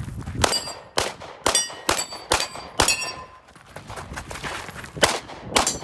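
Rapid gunshots on a steel-target stage, each hit answered by the ringing clang of a steel plate: six shots about half a second apart, a pause of about two seconds, then two more near the end.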